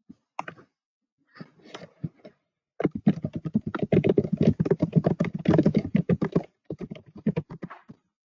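Typing on a computer keyboard: a few scattered keystrokes, then a fast, dense run of key clicks for about three and a half seconds, then a few more keystrokes near the end.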